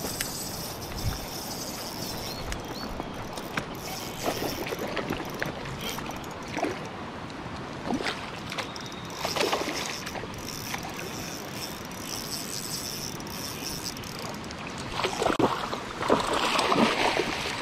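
Water splashing and sloshing in short bursts, strongest near the end, over a steady wash of wind and moving water.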